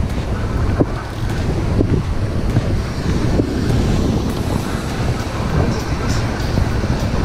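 Wind buffeting the microphone with a steady rumble, over ocean surf breaking on the beach.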